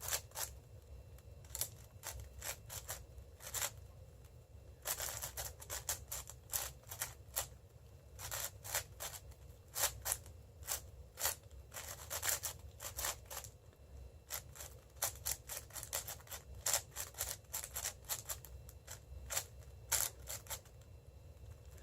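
Plastic 6x6 speedcube being turned fast by hand: its layers click and clack in quick irregular runs of turns. This is the solver working through a parity fix late in the solve.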